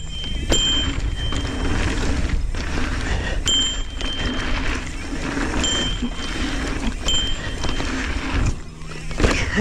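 Mountain bike riding a packed-dirt pump track: wind rushing over the action camera's microphone and knobby tyres rolling on dirt. A thin high whine comes and goes several times.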